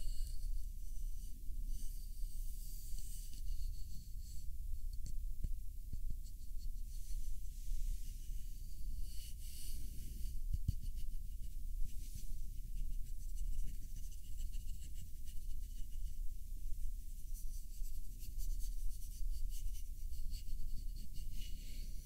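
Close-up scratching and rubbing on a wooden taiko drumstick (bachi) as it is handled and stroked, with a couple of soft knocks along the way.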